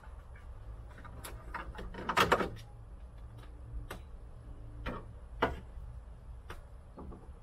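Hard plastic car interior trim parts and a plastic pry tool being handled: scattered clicks and knocks, with a brief loud clatter about two seconds in and a sharp knock about five and a half seconds in, over a low steady hum.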